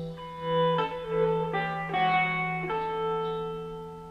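Amplified instruments play a slow line of sustained, pitched notes over a steady held low note. The notes change every half second to a second, then die away near the end.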